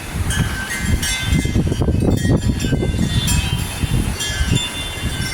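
Hurricane wind gusting, buffeting the microphone with a heavy low rumble, while porch wind chimes ring with scattered high tones.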